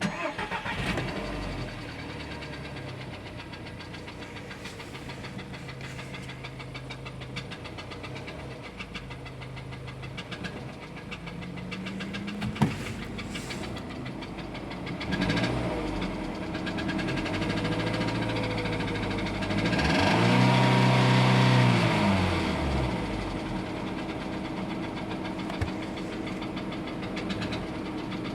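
1.4 TSI turbocharged petrol engine starting, then idling, revved twice past the middle and settling back to idle. It carries the abnormal noise that the owner reports as a sound problem.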